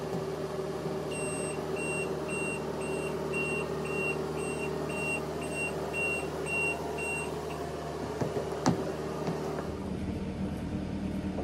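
An engine runs steadily while a reverse alarm beeps about twice a second for some six seconds, the warning of the machine backing up. A sharp click comes near the end, and the engine note changes shortly after.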